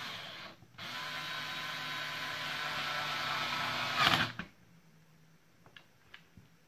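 Ferton 18V cordless drill's motor whirring steadily for about three seconds as soon as the battery pack is clicked on, then stopping with a loud clack as the battery is pulled off. It runs without the trigger held: the defective speed switch is stuck making contact.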